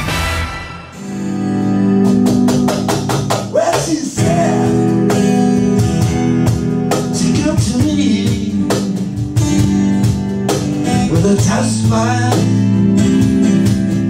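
Acoustic guitar strummed in a steady rhythm with a singing voice. The music dips briefly about a second in, then comes in full.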